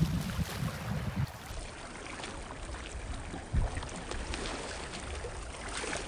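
Small waves lapping and trickling among shoreline stones, with wind buffeting the microphone in the first second and a soft low bump a little past halfway.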